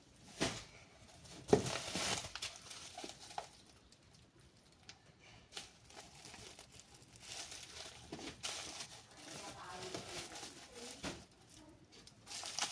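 Plastic packaging crinkling and rustling as parcels are handled and unpacked, with a sharp knock about one and a half seconds in.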